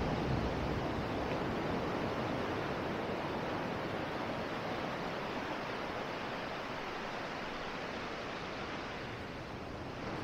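Steady rush of surf breaking and washing on a beach, easing a little near the end.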